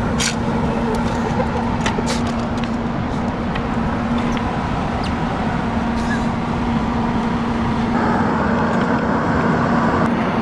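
Steady motor vehicle noise with a constant low hum, and a few light clicks near the start.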